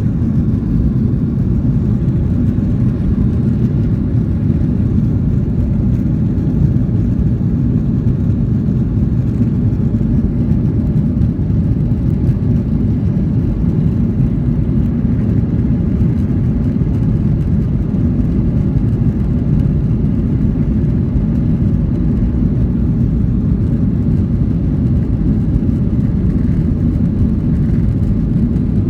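Steady low rumble of an airliner's jet engines, heard from inside the passenger cabin.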